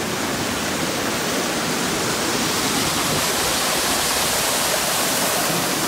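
Water of a shallow rocky stream rushing over boulders and a small waterfall pouring onto rocks: a steady, even rush that doesn't let up.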